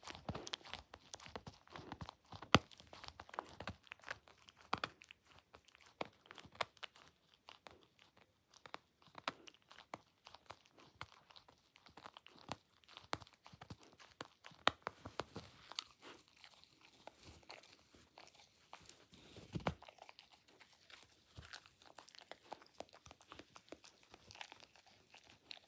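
Dachshund chewing and biting at a corded plush teddy, a long run of irregular crunchy chews and sharp clicks as he works at tearing it open to get at the squeaker.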